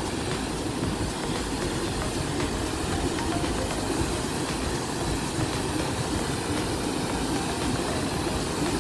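Steady rush of water spilling over the top of canal lock gates, mixed with wind rumbling on the microphone.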